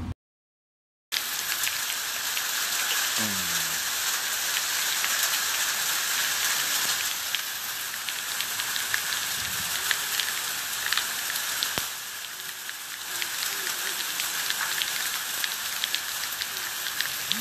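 Volcanic ash and small lapilli falling and pattering on the ground, a dense steady hiss full of small ticks, beginning about a second in after a brief silence.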